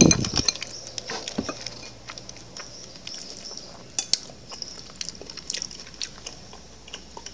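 Chopsticks clicking and tapping against a glass soup bowl and a ceramic plate while food is picked up, in scattered light clicks. A louder, longer sound comes at the very start.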